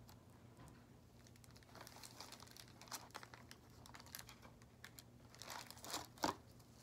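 Faint crinkling of plastic wrapping and small plastic clicks from a catheter kit being handled, as a saline syringe is fitted to the catheter's port. The rustles and clicks start about two seconds in and are loudest near the end.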